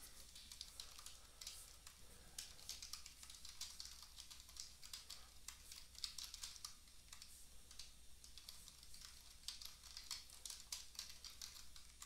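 Faint clicking of a computer keyboard being typed on in short irregular runs, as text is entered into form fields.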